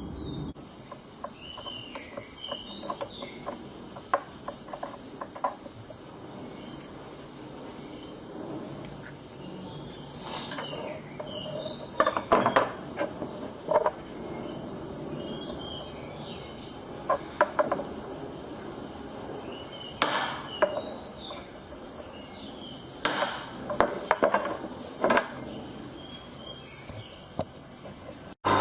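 Scattered light metallic clicks and knocks from metal parts being handled, over a bird chirping steadily about three times every two seconds.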